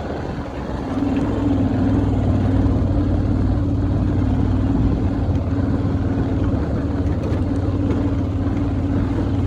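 Vehicle engine running steadily while driving along a rough unpaved road. It is a low, even engine note that grows louder about a second in.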